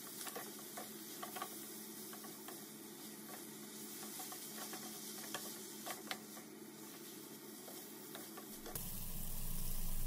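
Spaghetti and chunks of ham sizzling quietly in a nonstick frying pan as they are tossed with a wooden spatula, with small scraping clicks of the spatula against the pan. Background music fades in near the end.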